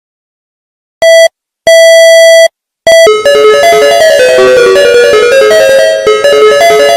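Emergency alert alarm: three loud electronic beeps at one pitch, short, long, short, then about three seconds in a fast synthesized keyboard melody starts and carries on.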